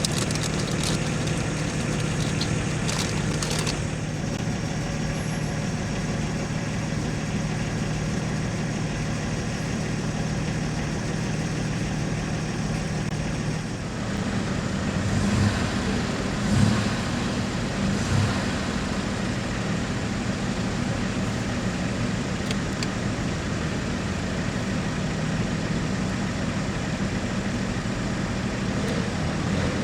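Motor vehicle engine running with a steady low hum. About halfway through the hum shifts higher, and a few short louder bumps follow.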